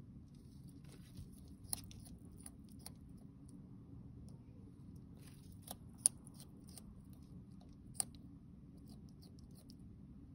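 Bearded dragon biting and crunching salad greens and shredded carrot from a bowl: scattered crisp bites, the three loudest about 2, 6 and 8 seconds in, over a faint steady low hum.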